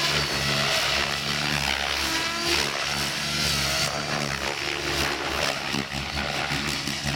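Compass 7HV electric RC helicopter flying 3D aerobatics: a steady rotor buzz and motor whine that rise and fall in pitch as the blades are loaded and unloaded.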